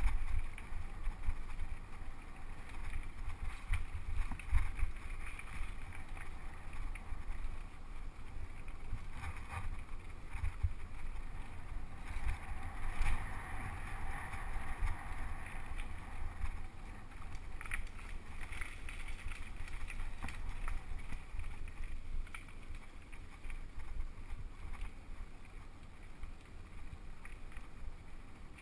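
Wind buffeting a GoPro Hero 2's microphone and the rumble and rattle of a mountain bike riding fast down a dirt singletrack: tyres rolling over packed dirt, with a few sharper knocks over bumps.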